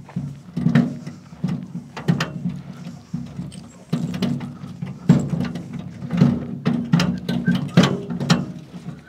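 Footsteps on dry grass and dirt close to the microphone, about two steps a second, over a steady low rumble.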